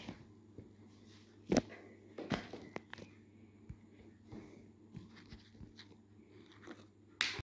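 Quiet room tone with a low steady hum and scattered small clicks and knocks, the loudest about a second and a half in and just before the end, where the sound cuts off suddenly.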